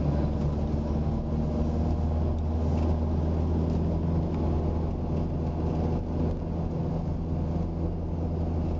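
Car engine running steadily while driving, heard from inside the cabin as a low, even drone with road noise.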